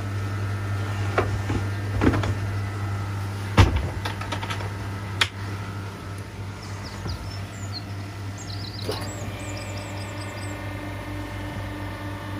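A door being shut, a few knocks with the loudest about three and a half seconds in, over a steady low hum from the pond's pump and filter equipment. Short high chirps follow after the middle.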